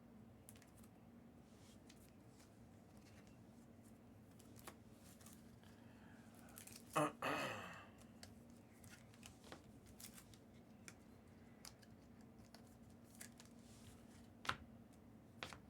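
Trading cards being handled: soft clicks and slides of cards over a faint steady hum, with a louder paper-like rustle about halfway through and a sharp click near the end.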